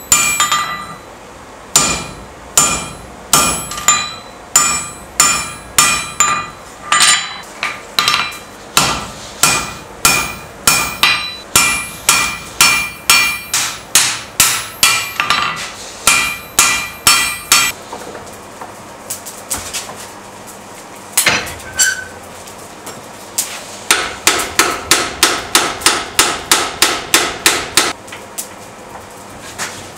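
Hammer blows on a red-hot steel bar on an anvil, about two a second with a metallic ring after each. After a pause with only a stray blow, a quicker run of about four blows a second comes near the end.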